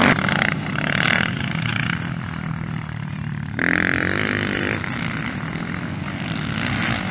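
Motocross bike engines revving and running on a dirt track, their pitch rising and falling as riders work the throttle. One bike comes in louder and higher for about a second midway.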